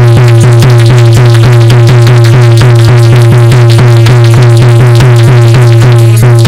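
Instrumental interlude of Dhola folk music: a dholak drummed fast and evenly, about five strokes a second, its bass head sliding down in pitch on each stroke, over a steady low held note.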